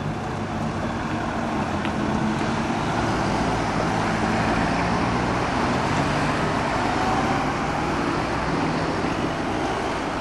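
Cars driving across a railway level crossing: a steady mix of engine hum and tyre noise as one car after another passes.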